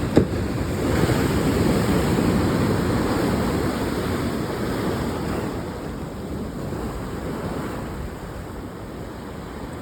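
Ocean surf surging in and washing back, swelling about a second in and slowly fading away, with some wind on the microphone.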